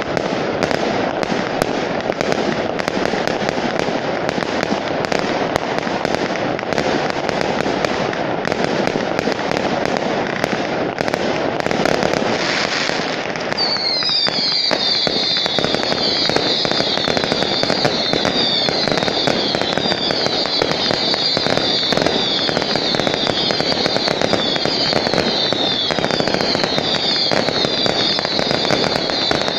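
Fireworks display: a dense, continuous crackle of small bursts and pops. About halfway through, a shrill whistling joins in, sliding down in pitch over and over.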